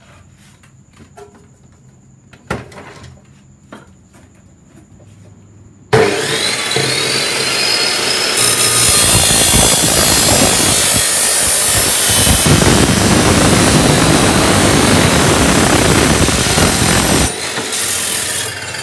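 A 2500 W, 355 mm abrasive cut-off saw (chop saw) is switched on about six seconds in and its abrasive disc grinds through a square steel tube for about eleven seconds; near the end the grinding stops and the sound drops away as the cut is finished. Before it starts there are only a few light clicks and one knock of handling.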